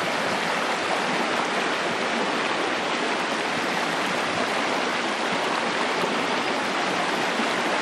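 Shallow creek riffle: fast water running over rocks, a steady even rush.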